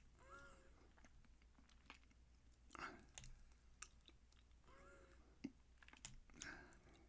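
Faint, scattered clicks and short scrapes of a lock pick and tension wrench working the pins inside a small Eagle padlock.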